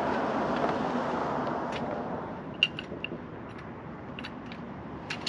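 A jack being let down so the Jeep settles onto its tire: a soft rushing noise that builds and fades over the first two seconds or so, then a few light metallic clicks.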